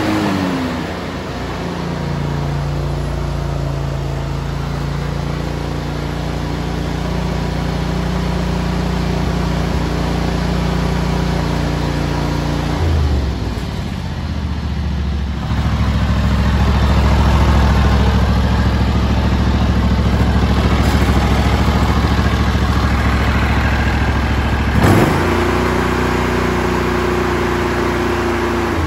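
2003 John Deere GX345 garden tractor's 20 hp liquid-cooled two-cylinder Kawasaki FD611V engine running, its speed changing. The pitch falls near the start, dips about halfway and settles lower and louder, then rises sharply near the end.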